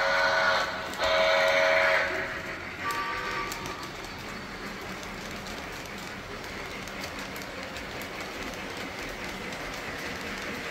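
A model steam locomotive's sound-system whistle blows, with the tail of one blast and then a longer blast about a second in, each a chord of several notes. A fainter short tone follows, then the train's steady running rumble as the freight cars roll past on the track.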